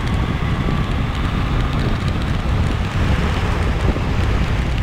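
Wind rushing over a handlebar-mounted action camera's microphone on a moving motorcycle, with the bike's engine and road noise beneath, a steady heavy rumble.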